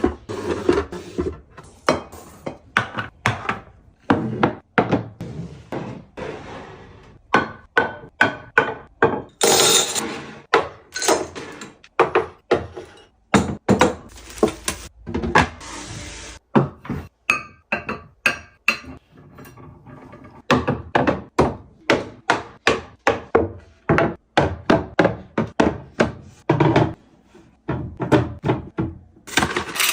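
Containers and food items being handled and set down while a refrigerator is restocked: a quick run of knocks, taps and clinks, several a second, with stretches of rustling between.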